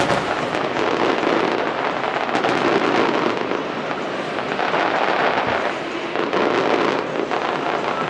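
Aerial fireworks display: a dense, continuous crackle of many small bursts going off together, with no single big boom standing out.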